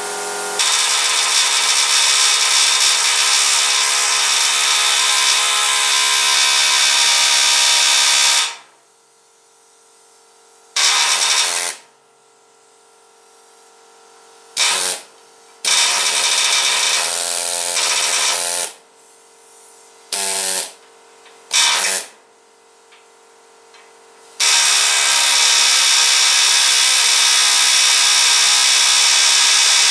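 Pneumatic air chisel hammering at steel chassis rivets. It runs for about eight seconds, then goes in several short stop-start bursts with pauses between, then runs steadily again near the end. The small air chisel is not knocking the rivets out.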